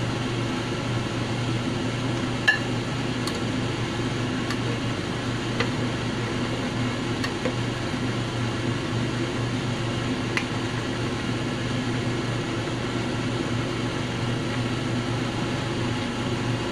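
Steady machine hum, with a handful of light clinks from a utensil tapping a saucepan of simmering oden as it is stirred; the sharpest clink comes about two and a half seconds in.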